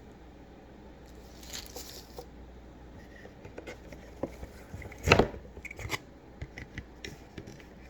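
Packaging being handled while a tablet screen protector is taken out: scattered small clicks and rustles, with one loud knock about five seconds in.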